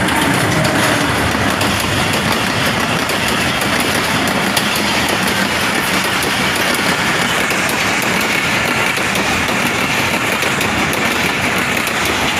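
A large engine running steadily: an even low hum under a constant hiss, with no change in speed.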